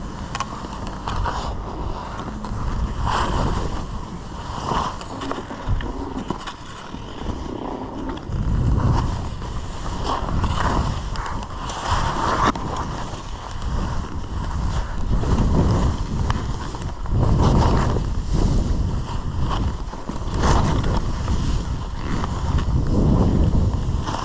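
Skis scraping over snow with wind rushing across the microphone, swelling and fading every second or two.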